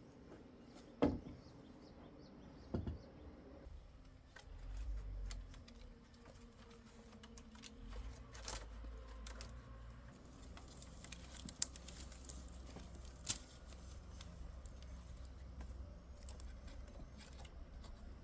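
A few scattered sharp knocks and clicks, the loudest about a second in, over a faint low rumble that comes up briefly around five seconds in and again from about eight seconds in.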